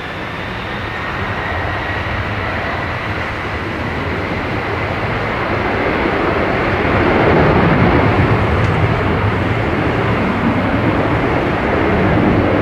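Boeing 767-300ER's General Electric CF6 turbofans running at high thrust during the takeoff roll: a steady jet roar with a faint high fan whine, growing gradually louder.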